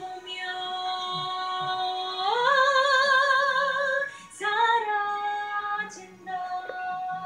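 A woman singing long held notes with vibrato; the pitch steps up about two seconds in, and she breaks off briefly twice before going on with a falling phrase.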